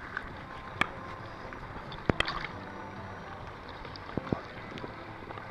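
Close handling noise as a monkey grabs and mouths the camera: sharp knocks and clicks on the camera body, once near the start, a quick cluster about two seconds in and a pair about four seconds in, over a steady hiss.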